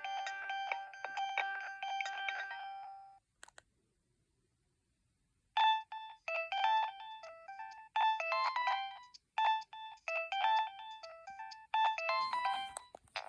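Nokia 2112 preloaded ringtones playing through the phone's speaker. A ringtone melody stops about three seconds in, a short click follows, and after about two seconds of silence another ringtone starts up with a repeating run of electronic notes.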